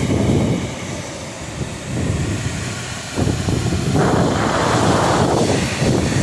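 Strong storm wind gusting and buffeting the microphone over a steady hiss of heavy rain. The gusts come in surges and grow louder and fuller about three seconds in.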